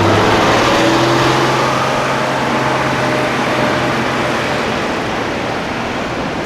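A car driving by with engine and road noise, loudest at the start and fading as it moves away.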